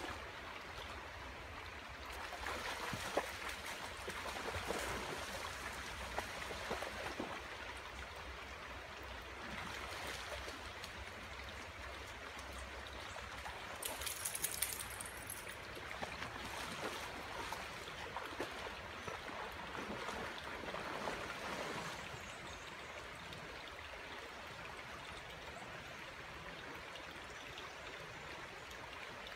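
Creek water flowing steadily, with a dog's splashing and paddling as it swims through the water swelling and fading, and a short sharper splash about halfway through.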